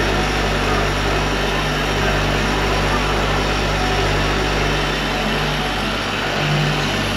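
Electric rotary polisher running steadily with its pad pressed on a car's painted fender, a constant motor hum: machine polishing of the paint after sanding.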